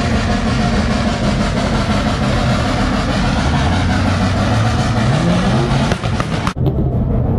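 Car engines running loudly, with one revving up in a rising pitch about five seconds in; the sound cuts out briefly near the end.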